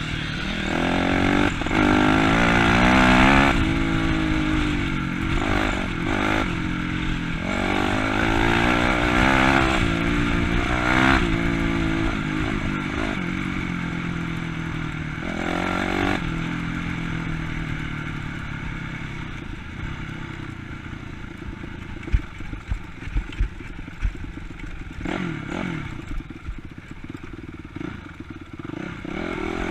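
Honda CRF250 dirt bike's single-cylinder four-stroke engine revving up and easing off over and over for the first half. It then runs steadier and quieter, with a few sharp knocks a little after two-thirds of the way through.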